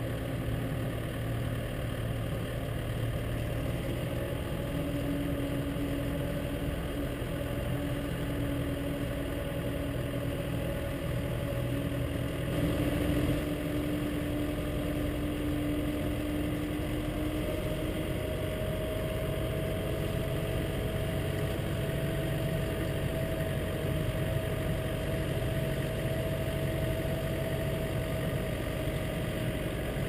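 Case tractor's diesel engine running steadily as it drives along pushing a front snow plough blade, heard from inside the cab; the engine note rises slightly about halfway through.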